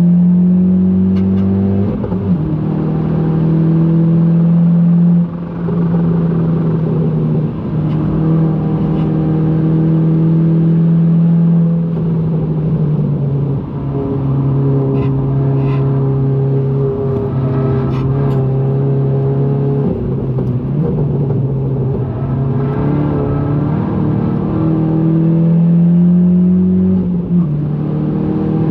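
Modified Volkswagen Golf GTI engine running hard under load at speed. Its note holds and climbs, with brief dips and steps in pitch as gears change, about two, five, seven and a half, thirteen and a half seconds in and near the end.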